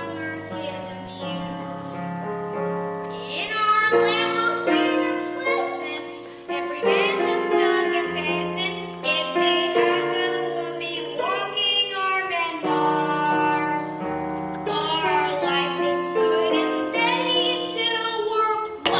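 Voices singing a musical theatre number over a piano or keyboard accompaniment.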